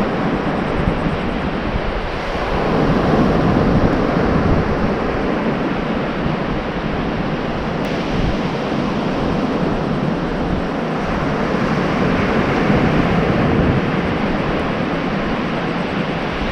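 Ocean surf washing onto the beach in a steady rush that swells and eases, with wind buffeting the microphone.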